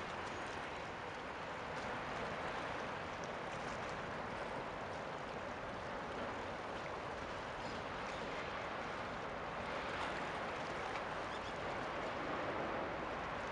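Steady rushing, hissing water noise with no clear rhythm or engine tone.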